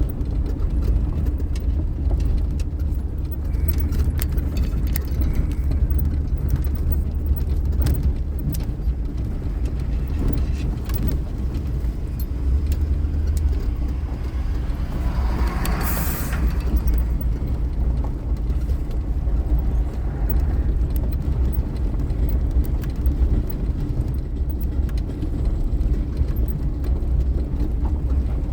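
Steady low rumble of a car in motion, with a brief hiss that swells and fades about halfway through.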